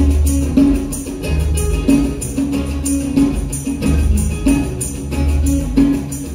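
Live acoustic band music: strummed and plucked instruments over a pulsing bass line, with a bright percussion strike about twice a second keeping the beat.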